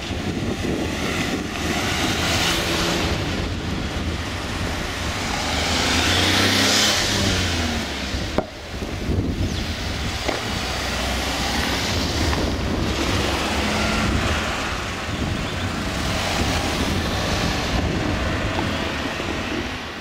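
Road traffic: cars driving past on the street beside the level crossing, engine and tyre noise swelling and fading, loudest as one passes about six to seven seconds in. A single short knock comes a little after eight seconds.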